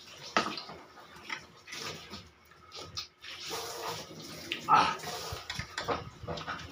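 Close-up eating sounds from a person eating prawns by hand: irregular wet slurping, sucking and chewing, with the loudest slurp a little before the five-second mark.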